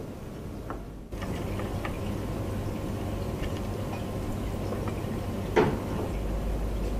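Steady low room hum that grows louder about a second in, with scattered light clicks and taps and one sharper knock about five and a half seconds in.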